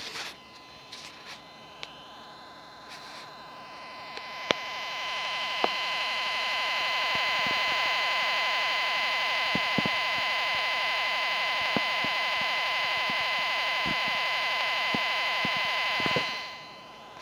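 Midland WR-120 weather radio giving off strange electronic sounds: a steady high tone, joined about four seconds in by a loud buzzing hiss that holds steady and drops away shortly before the end, with scattered faint clicks. The radio makes these sounds when its backup batteries are dead.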